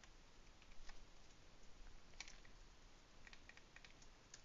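Faint, scattered computer keyboard keystrokes over quiet room tone, with a small run of quick taps a little after three seconds in.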